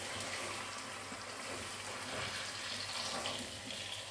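Semolina halwa cooking in ghee in a wok on a gas burner while it is stirred with a metal spoon, giving a steady hiss.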